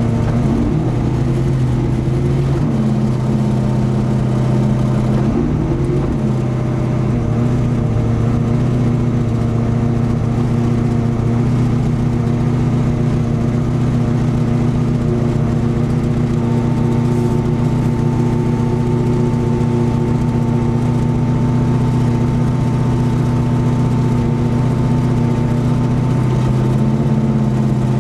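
Big-block V8 of a nitrous drag-racing Ford Mustang idling steadily, heard from inside the car, with slight pitch shifts about a second in and again around five to six seconds.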